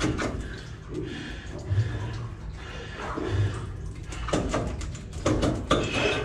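A Detroit 60 Series raw water pump being worked loose from the engine by hand, giving irregular metal knocks and scrapes, a cluster of them in the last two seconds. The pump has failed, its shaft suspected snapped.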